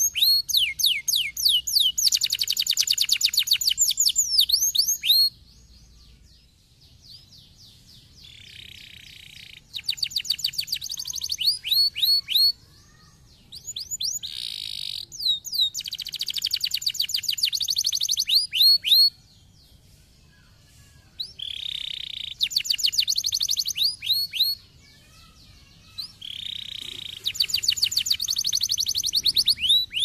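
Domestic canary singing in bouts of a few seconds: fast trills of quickly repeated sliding notes, some phrases opening with a steady lower note, with short pauses between phrases.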